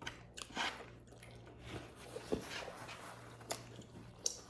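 Close-up eating sounds: chewing with small wet, squishy mouth clicks coming at irregular moments.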